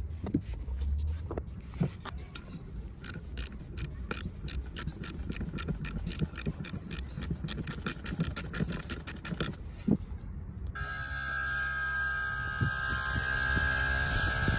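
A quick, even run of metallic clicks, about four a second, from hand-tool work at the camshaft end of a diesel cylinder head. About eleven seconds in, background music starts.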